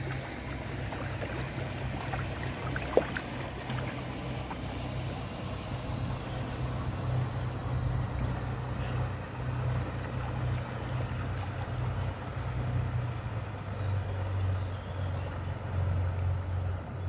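Diesel engine of a passing canal barge, a steady low drone that settles lower in pitch about three-quarters of the way through. A single sharp click comes about three seconds in.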